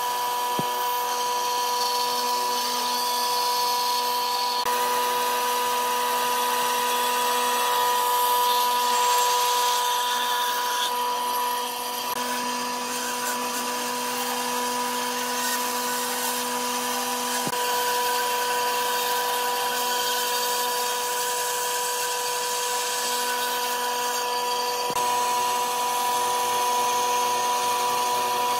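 Band saw running and cutting into a thick wooden block, a steady machine hum with the hiss of the blade through the wood.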